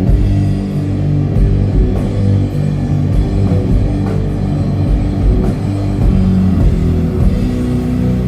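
Doom metal band playing live: heavy guitars and bass hold low chords that change slowly, over drums and cymbal hits.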